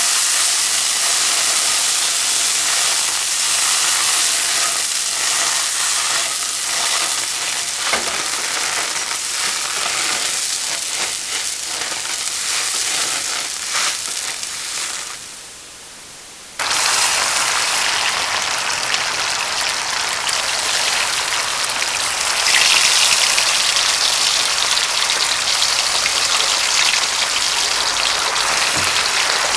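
Food sizzling and crackling in hot oil, a steady spitting hiss. It fades out about 15 seconds in, and a brighter, harsher sizzle starts abruptly about a second and a half later.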